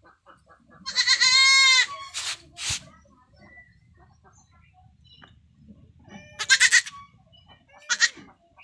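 Young goat bleating: a long, loud, quavering bleat about a second in, two short breathy sounds just after, then two shorter calls near the end.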